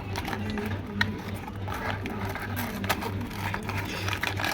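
Tape being peeled and a new part's packaging handled, with sharp clicks about a second in and near three seconds and scraping between, over a steady low hum that pulses evenly about five times a second.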